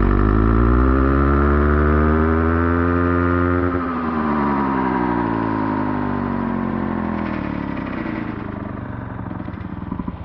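Chainsaw engine sound slowed down and pitched very low as an edited effect: a deep droning note that rises for about four seconds, then sinks slowly and fades, with an echoing effect.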